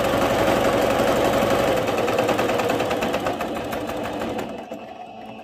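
Singer C5205 computerised sewing machine running a long straight stitch at maximum thread tension, gathering the fabric as it sews. It runs steadily, then winds down and stops near the end.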